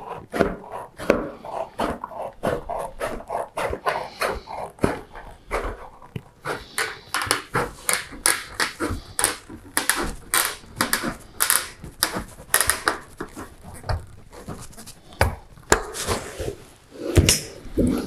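Hand metal snips cutting painted roofing sheet metal: a quick series of crisp, crunching cuts, several a second, as the shears work along the marked line.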